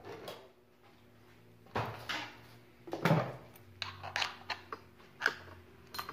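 Pneumatic brad nailer being handled on a wooden workbench: scattered knocks and clicks as it is set down, picked up and turned in the hands. The loudest knock comes about three seconds in, with a quick run of lighter clicks just after.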